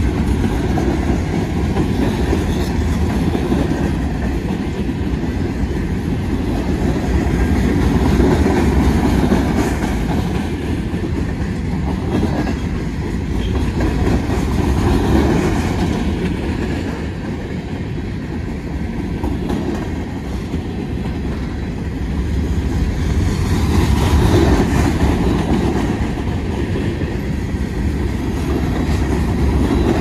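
Empty coal hopper and gondola cars of a freight train rolling past at close range: a steady rumble of wheels on rail with a clickety-clack, swelling louder three times and easing between.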